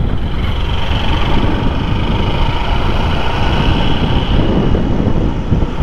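Motorcycle on the move: steady wind rush on the helmet microphone with the engine running underneath.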